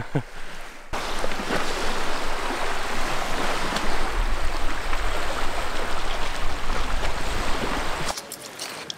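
Shoreline ambience: a steady rush of sea washing on the beach and wind, with a low rumble of wind on the microphone. It drops off suddenly about eight seconds in.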